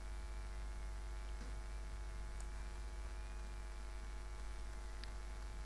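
Steady electrical mains hum with a buzzy stack of overtones and a faint high whine above it, with a few faint ticks.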